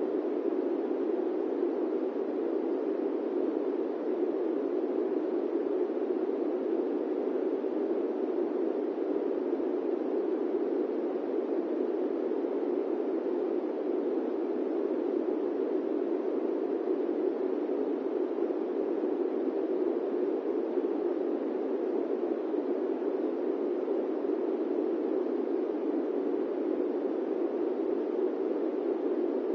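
Electric fan running steadily: an even, low rushing noise with no hum, rhythm or change.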